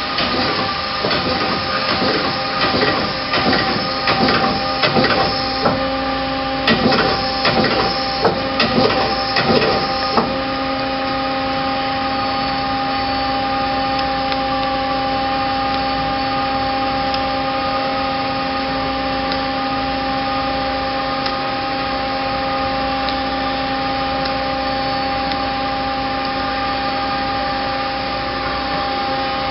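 Mazak Quick Turn 20HP two-axis CNC turret lathe running under power. A series of irregular knocks and clunks comes through the first ten seconds or so. After that it settles into a steady machine hum with several held tones.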